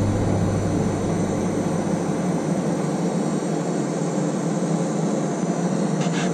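Portable induction hob running under a pan of water: its cooling fan whirring steadily, with a low electrical hum that fades within the first couple of seconds. A brief click comes near the end.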